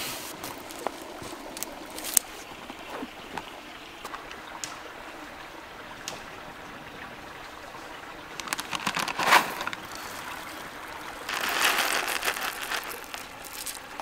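Stream running steadily in the background, with small clicks and rustles of gear being handled. Around 9 s a sharp crinkling of packaging, then from about 11 s a couple of seconds of crinkling foil-lined coffee bag and coffee pouring into a metal hand grinder.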